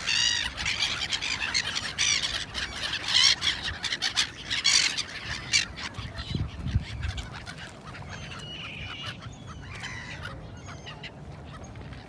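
A flock of gulls calling: many short, harsh cries overlapping in the first half, thinning to fewer, fainter calls after about eight seconds. A brief low rumble sounds about six and a half seconds in.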